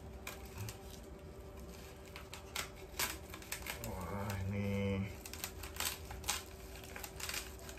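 Scissors cutting into the paper and packing-tape wrapping of a small parcel: a run of irregular sharp snips and clicks with paper crinkling. About four seconds in there is a brief low hum of a voice.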